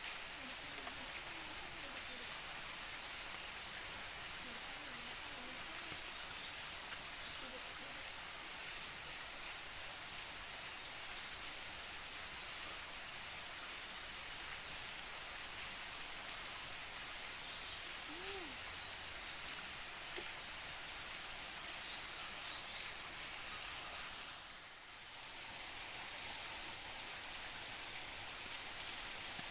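Steady high-pitched insect chorus, with a few faint short low calls now and then.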